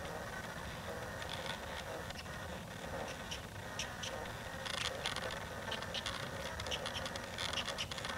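Light scratching and rubbing clicks on the microphone, typical of a hand-held camera being moved, scattered over steady outdoor background noise and thickening in the second half.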